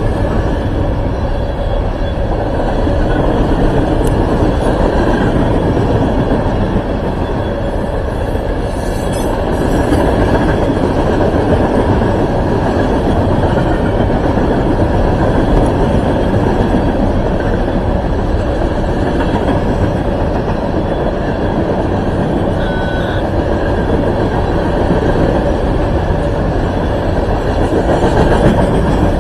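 Loaded coal hopper cars of a freight train rolling steadily past, steel wheels on rail making a continuous loud noise.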